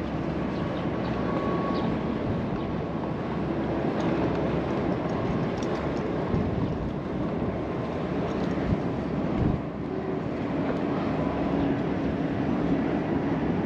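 Wind buffeting the microphone: a steady, gusty low rumble of outdoor noise.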